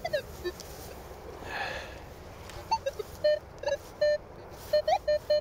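Minelab Manticore metal detector sounding a choppy run of short beeps, mostly on one tone with a few higher blips, that comes faster and more regular near the end. The beeping is the coil passing over ground littered with iron, with iron and other signals mixed together.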